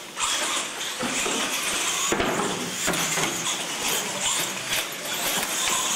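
Radio-controlled monster trucks running across a concrete floor, their motors and tyres whirring, with a couple of sharp knocks about two and three seconds in as they hit the ramps.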